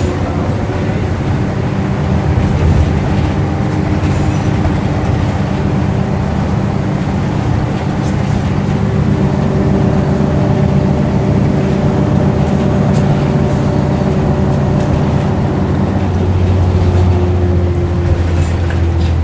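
Scania N113CRB single-deck bus, its 11-litre straight-six engine and Voith automatic gearbox, heard from inside the saloon while driving along, with a steady drone and road noise. The engine note shifts a little partway through, and a deeper note grows stronger near the end, with a few light rattles.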